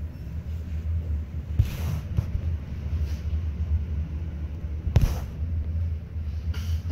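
Schindler electric traction lift car travelling, a steady low rumble with a few short knocks, the strongest about five seconds in.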